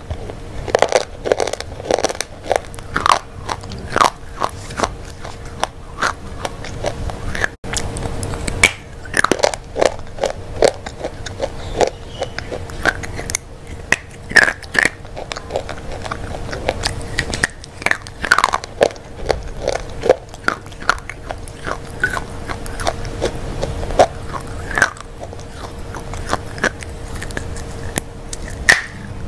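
Close-up crunchy biting and chewing of hard white pieces of food, with sharp crunches every second or so and mouth sounds in between. A faint steady hum runs underneath.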